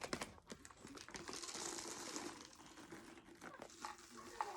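Plastic snack bags crinkling and rustling as they are handled, with a few light clicks.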